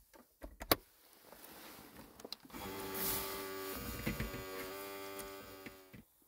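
Rice cooker lid clicking shut about half a second in. Then a USB electric water bottle pump dispenser runs with a steady motor hum while water pours over hands into a glass bowl, cutting off after about three seconds.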